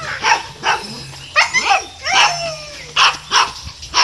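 Husky-type dog giving a quick run of short, pitched barks and yips, about two a second, some of them bending in pitch.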